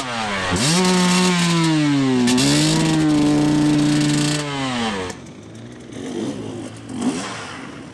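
Enduro motorcycle engine revved hard and held at high revs for about four seconds, dipping briefly twice, then dropping away to quieter, uneven revving near the end.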